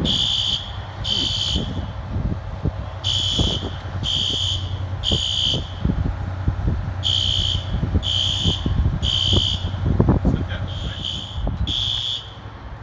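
System Sensor fire alarm horns sounding the temporal-three evacuation pattern: three half-second high-pitched blasts, a pause, then three more, repeating, with the unsynchronized horns not quite in step. Wind buffets the microphone throughout.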